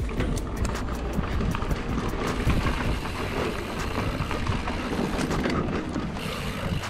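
Mountain bike riding down a dirt singletrack: tyre noise on dirt and leaves with the bike rattling and knocking over bumps, over a steady low rumble of wind on the microphone.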